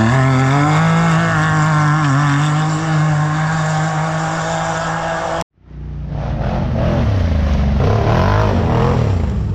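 Off-road race vehicle engine running and revving, its pitch rising and falling with the throttle. It cuts off abruptly about five and a half seconds in, and a second stretch of engine revving follows.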